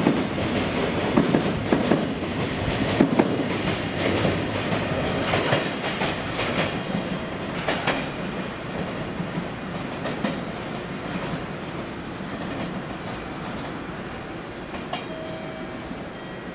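Wheels of a freight train's container flatcars clattering over rail joints as the last wagons pass and the train draws away, the clatter fading steadily.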